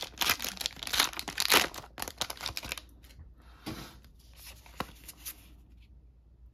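Foil booster-pack wrapper of a MetaZoo trading-card pack being torn open and crinkled: a rapid run of loud tearing and crinkling rustles for about three seconds. Then come a few softer rustles and a single sharp tick as the cards are handled.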